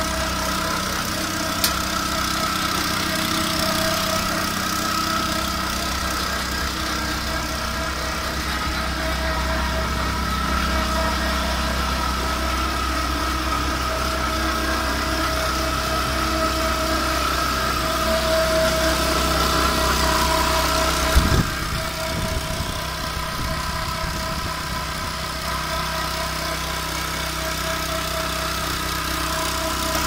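Small engine of an engine-driven 320-litre portable concrete mixer running steadily at idle, with a steady hum. There is a sharp click about two seconds in and a brief knock about twenty-one seconds in.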